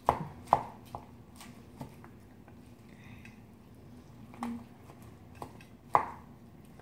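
Metal spoon and chopsticks knocking and scraping against stainless steel bowls while bibimbap is mixed and noodles are lifted. A handful of sharp clinks, the loudest just at the start and again near the end.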